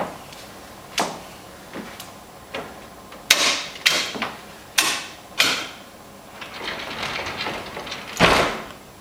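Fold-up wall bed being swung up into its cabinet: a run of sharp knocks and clicks from the frame and its fold-away legs. Then a sliding cabinet door rolls along its track for about a second and a half and shuts with a loud thud near the end.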